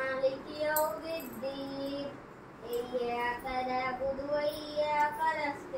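A child's voice chanting melodically in long held notes that glide up and down, in several phrases with short breaks between them.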